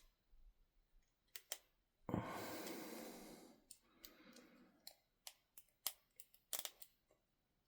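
Faint, scattered metallic clicks and taps of a pick and tensioner working in a Brinks 30mm padlock, with a breathy hiss lasting about a second and a half around two seconds in.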